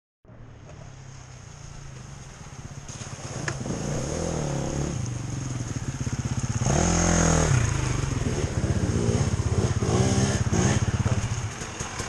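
Off-road dirt bike engines: a steady low engine hum with a second bike revving in rising and falling surges as it rides up the track. It grows louder as it approaches and is loudest about seven seconds in.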